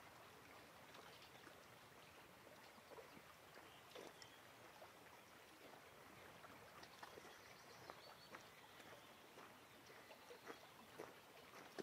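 Near silence: faint outdoor ambience, small waves lapping at shoreline rocks with scattered soft ticks and splashes.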